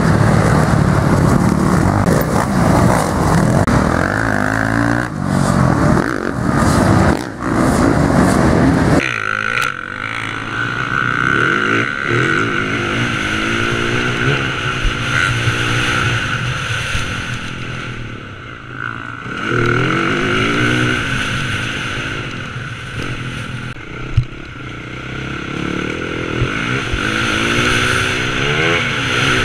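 Motocross bike engine heard from the rider's helmet camera, revving up and dropping back again and again as it rides the dirt track. For the first few seconds a loud rushing noise fills the sound, cutting off abruptly when the onboard engine sound takes over.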